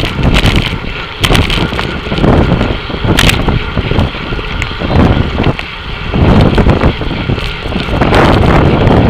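Wind buffeting the microphone of an action camera riding in a pack of racing road cyclists, surging in gusts, with a few sharp clicks.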